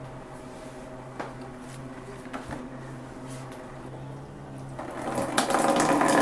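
A faint steady hum with a few light clicks, then about five seconds in water starts running and splashing loudly as the supply is opened to the instant water heater, filling it for the first time.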